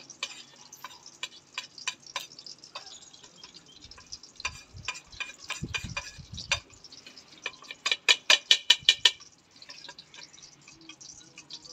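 A metal spoon clinking and scraping against a plate and a small bowl as dry spices are scraped into yogurt and stirred in. There are scattered clinks throughout, with a quick run of them about eight seconds in.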